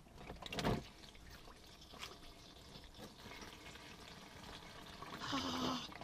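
Hot engine oil draining from a 2007 Nissan 350Z's oil pan into a catch pan with the drain plug just removed: a faint steady trickle, with a brief louder burst of noise just after the start. A short drawn-out vocal sound comes near the end.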